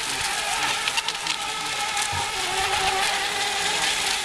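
Several small electric radio-controlled racing boats running flat out in a race: a steady high motor whine that wavers slightly in pitch, over a hiss.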